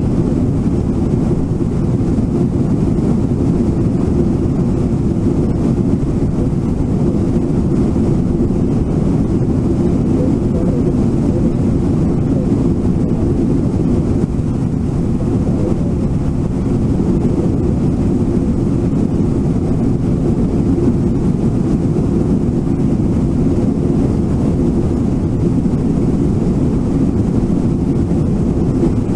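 Brooks River rushing over rapids: a steady, even low roar of moving water.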